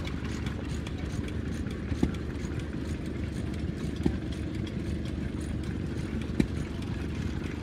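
Six-cylinder air-cooled Ruston Hornsby diesel engine idling with a steady low rumble. A short sharp knock sounds about every two seconds.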